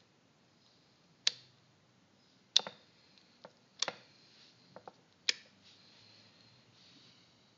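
Geiger counter of a RAM 63 radiation meter clicking at irregular intervals while counting background radiation: four sharp, loud clicks and a few fainter ones.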